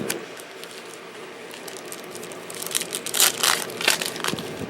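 Crinkling and crackling from trading cards being handled, with a cluster of sharp crackles from about two and a half seconds in.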